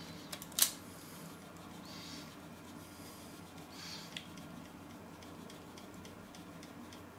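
Soft marzipan being grated on a flat hand grater: a few faint rasping strokes, with a sharp click about half a second in. A steady low hum sits underneath.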